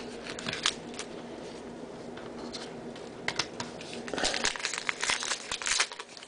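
A baseball card pack's wrapper being torn open and crinkled by hand, with the crackling growing louder about four seconds in.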